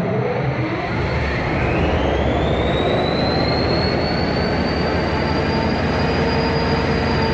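Train rolling past with a loud, steady rumble and a high wheel squeal that rises in pitch over the first few seconds, then holds steady.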